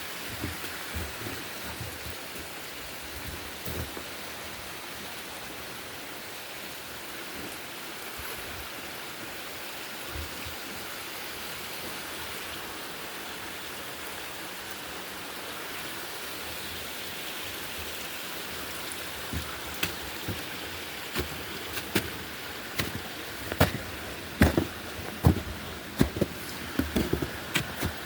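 Steady hiss of running water, like a stream or waterfall. Footsteps on the trail come in about two-thirds of the way through and grow more frequent toward the end.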